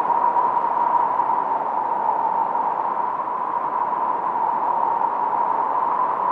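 Filtered noise from a 1972 Minimoog synthesizer, run through a Roland RE-501 Chorus Echo and a Studer A80 tape recorder. It is a steady, unchanging hiss, strongest in a narrow band in the middle with a slight whistling edge, and has no high treble.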